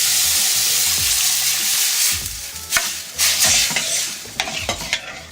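Loud sizzle as the rasam and the hot-oil tempering of mustard seeds, asafoetida, red chillies and curry leaves meet. It is strongest for about the first two seconds, then dies down to lighter sizzling while the pot is stirred.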